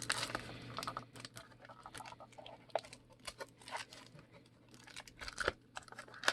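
Trading card packaging being handled and opened: cardboard and wrapper rustling and crinkling, with scattered small clicks and taps.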